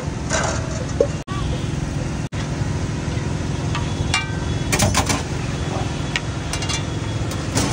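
Steady low rumble of background noise, with a few brief sharp clinks about five seconds in and near the end.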